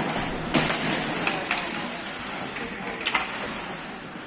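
Ice hockey play on the rink: a steady scrape of skates on the ice, broken by several sharp clacks of sticks and puck, the loudest about half a second in.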